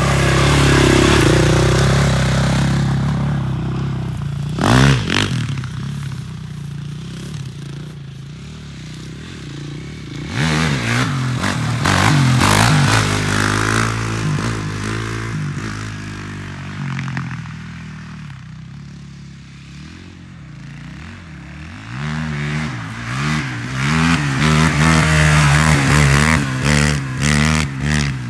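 KTM 450 quad's single-cylinder four-stroke engine revving up and down again and again as the ATV is wheelied, its pitch rising and falling with the throttle. A sharp clatter comes about five seconds in.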